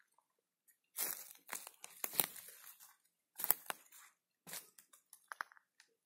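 Footsteps crunching on gravel and loose stones, several steps with short pauses between.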